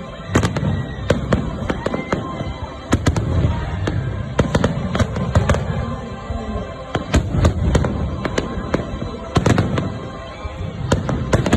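Fireworks display: an irregular run of sharp bangs and crackles, several a second at times, over a continuous low booming rumble.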